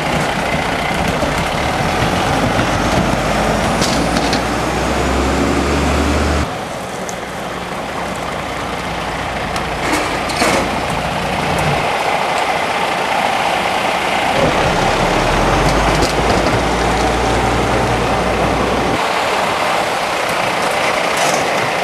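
Fire engine's diesel engine running at low speed as the truck manoeuvres, its note rising and easing off in steps, with an abrupt drop about six seconds in. A few short knocks or clicks sound over it.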